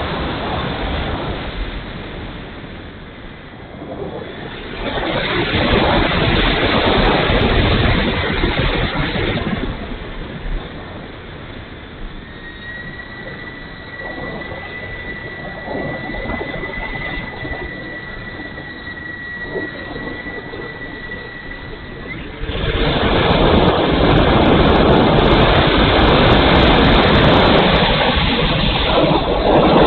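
Propeller and wind rush heard from a wing-mounted camera on a radio-controlled model Hawker Hurricane. The sound gets louder twice, about five seconds in and again near the end. In the quieter stretch between, while the model is on the runway, a thin steady whine sounds.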